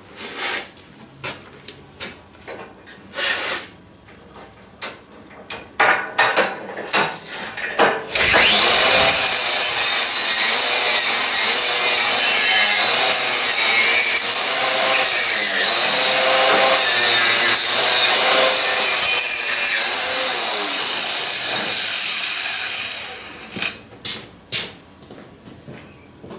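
Knocks and clatter of handling on a steel table, then about eight seconds in an angle grinder runs against a steel exhaust pipe, working the metal for around twelve seconds, and winds down near the end.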